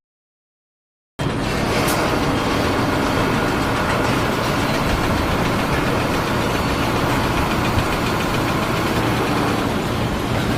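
A loud, steady machine noise, like an engine running, that starts abruptly about a second in after a moment of silence.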